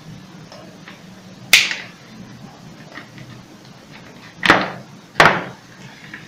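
Three sharp snaps and knocks from hand tools as orange-handled pliers work on electrical cable at a workbench: one about a second and a half in, then two close together near the end.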